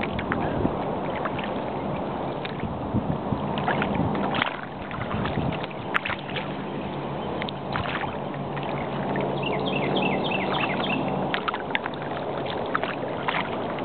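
A boat motor running at a steady low hum, which drops away about eleven seconds in, with birds calling over it, including a quick run of high chirps near ten seconds.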